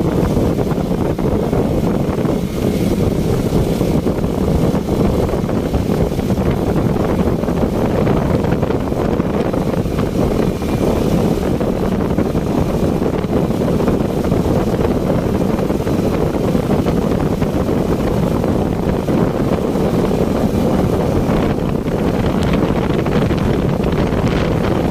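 Steady rush of wind buffeting the microphone over the running of a motorcycle tricycle (motorcycle with sidecar) cruising at road speed.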